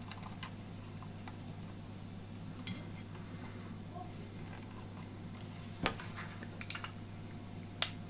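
Small plastic clicks and knocks as the cable connectors of an RGB PC case fan are handled and pushed together, scattered and irregular, with a louder click about six seconds in and another near the end.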